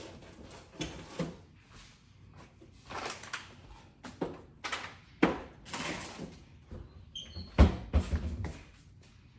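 Kitchen items being put back into a cupboard: a string of knocks and clatters, with a heavy thump about three quarters of the way through, just after a brief high tinkle.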